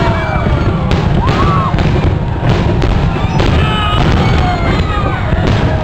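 Aerial fireworks bursting continuously: a dense run of bangs and crackles over a constant heavy low rumble.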